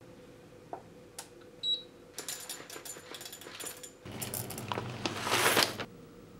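A digital coffee scale gives a short, high beep. Then roasted coffee beans rattle and clatter into a stainless steel cup on the scale, and the clatter grows louder for about two seconds near the end.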